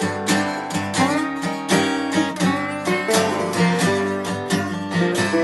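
Acoustic guitar playing an instrumental blues break in a steady rhythm of strummed and picked notes, with a few notes bent or slid.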